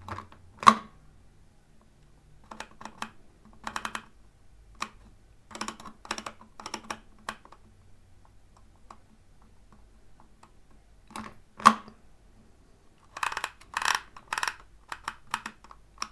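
A vintage Dymo-style embossing label maker being used. Its letter wheel clicks round through its detents in short bursts of fast clicks, and the handle is squeezed to emboss letters into the plastic tape. Two of the presses give much louder single sharp clacks, one about a second in and one near twelve seconds.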